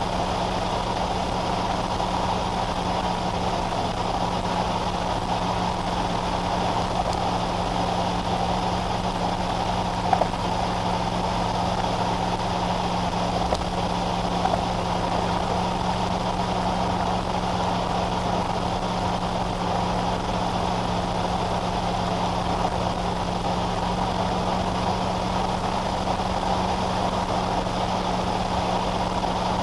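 Steady engine and tyre noise heard from inside a car's cabin as it cruises at highway speed, with a low steady hum under a road-noise hiss. A few brief faint clicks near the middle.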